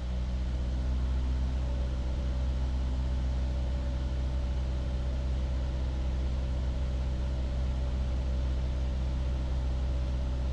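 Light aircraft's piston engine and propeller running at steady power, heard from inside the cockpit as a constant low drone with no change in pitch, during a low pass over a runway at about 70 knots.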